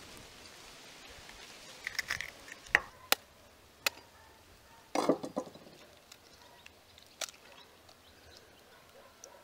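Knife blade striking a raw eggshell: several sharp taps about half a second to a second apart, then a short crackle as the shell breaks open around five seconds in, and a lighter click later on.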